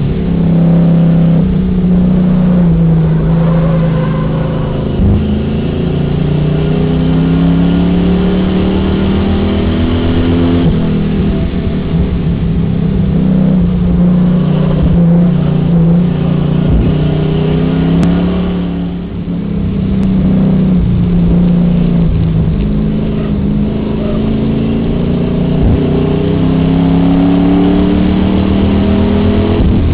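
Enduro race car's engine heard from inside the car, revving up and easing off again and again, its pitch climbing and falling every few seconds as the car laps the track.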